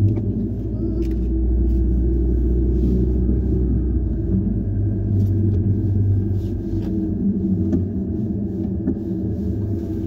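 Steady low rumble of a moving car heard from inside the cabin: engine and road noise, with a few faint clicks.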